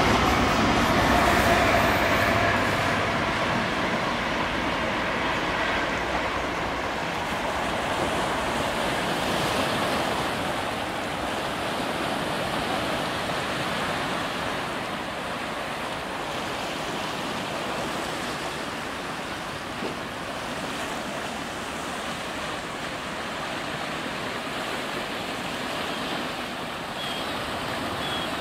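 Sea waves washing steadily against a stone sea wall. In the first few seconds the noise of a departing diesel High Speed Train fades away under it.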